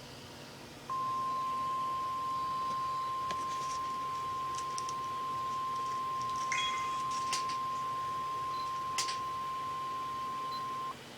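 NOAA Weather Radio warning alarm tone: a single steady 1050 Hz beep that starts about a second in and is held for about ten seconds before cutting off. It signals that a warning, here a severe thunderstorm warning, is about to be read.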